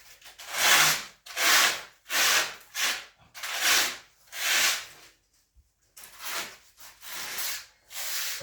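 Repeated rubbing or scraping strokes by hand, roughly one a second, with a short break about halfway through.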